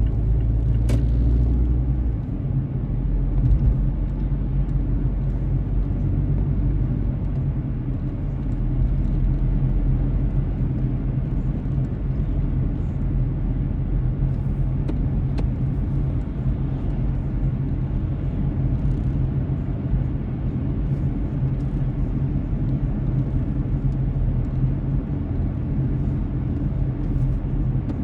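A car driving along the road: a steady low rumble of tyre and engine noise picked up by the dashcam inside the car.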